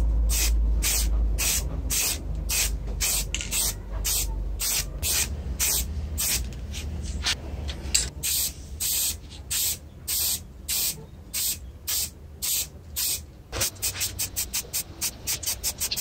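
Spray paint hissing out in short repeated bursts, about two to three a second, as a plastic CRT monitor bezel is coated white. The bursts turn quicker and shorter near the end.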